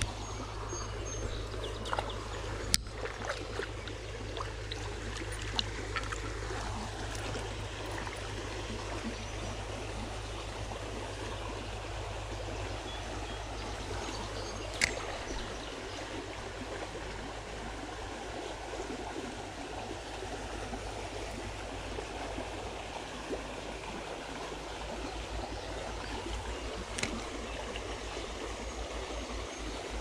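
Creek water running steadily, with a few sharp clicks at intervals, the loudest about three seconds in.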